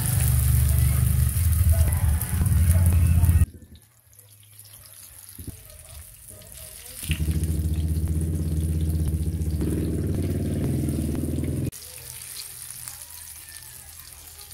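Hot oil sizzling in a frying pan as breadcrumb-coated eggplant slices fry, heard as a steady hiss. In sharply cut-in stretches at the start and in the middle, a loud low steady hum sits over it.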